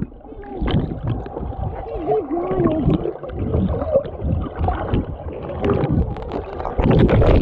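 Pool water churning and bubbling, heard muffled through a submerged camera, with a louder surge of water near the end.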